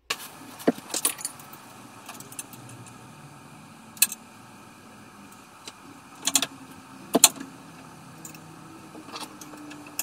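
Scattered light metallic clicks and rattles from a bicycle gear cable and its housing being handled and fitted to the frame, a few sharp ticks spread out with the loudest about seven seconds in.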